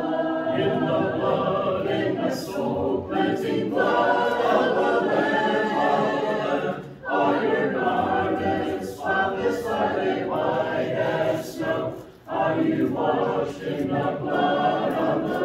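Congregation singing a hymn a cappella, with short breaks between phrases about seven and twelve seconds in.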